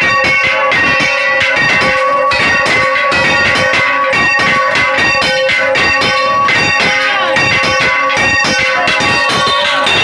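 Church bells ringing loudly and close up: a large swinging bell struck over and over together with other bells, rapid overlapping clangs over a steady ringing hum that never dies away.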